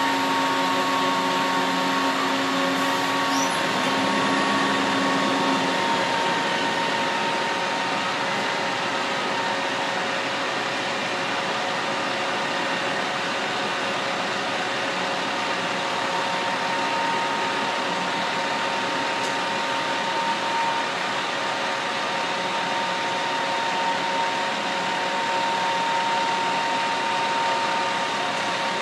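Steady mechanical drone of idling work trucks at a utility job, an even hum with a few faint steady whines running through it.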